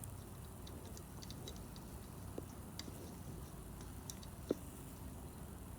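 Faint, scattered small clicks and taps of hardware being handled, over a low steady hum, with one slightly louder tap about four and a half seconds in.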